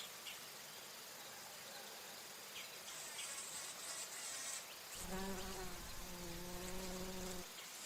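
Bumblebee buzzing in flight close by: a low, steady wingbeat hum that starts about five seconds in, dips slightly in pitch, and cuts off after about two and a half seconds, over faint background hiss.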